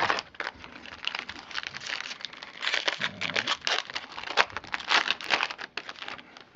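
Foil wrapper of a 2011 Topps baseball card pack crinkling and tearing as it is ripped open by hand, in a dense run of irregular crackles.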